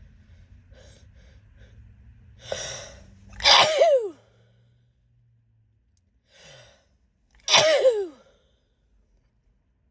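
A woman sneezing twice in a sneezing fit, about four seconds apart. Each sneeze follows a quick in-breath and ends in a falling voiced "choo".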